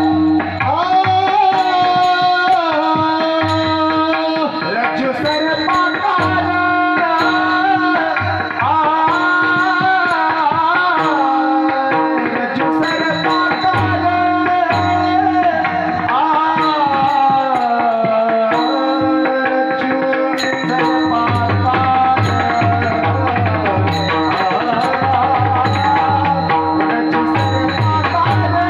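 A man sings a Marathi devotional bhajan in a winding, richly ornamented melody over a steady held tone. Hand-drum strokes and light high metallic ticks keep an even beat.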